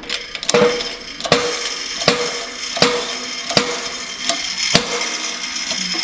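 20-ton hydraulic bottle jack on a shop press, its handle pumped with a sharp click about every three-quarters of a second, as the press pushes a bearing out of a generator part.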